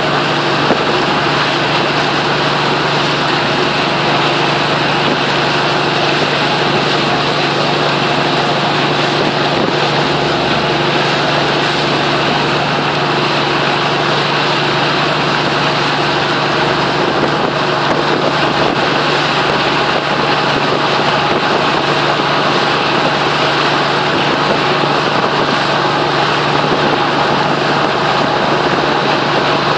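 A boat's engine running steadily under way, a constant low hum over a steady rush of water.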